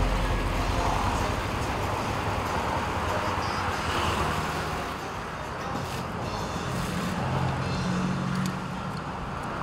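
Royal Enfield single-cylinder motorcycles idling as they pull up and park, over steady street traffic. The low engine note stops about eight and a half seconds in.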